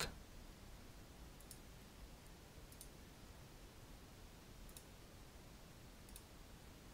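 Faint left-button clicks of a computer mouse, about four of them spaced a second or two apart, over near-silent room tone.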